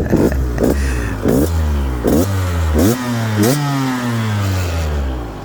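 Husqvarna TE 150i's fuel-injected single-cylinder two-stroke engine revved in about five quick throttle blips, each rising sharply and dropping back, then the revs fall away slowly and the engine quietens near the end.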